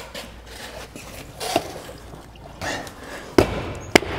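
A heavy tractor tire and wheel being rocked and shuffled by hand to line it up on the hub studs, with rubber scuffing and rustling. Near the end come two sharp knocks about half a second apart.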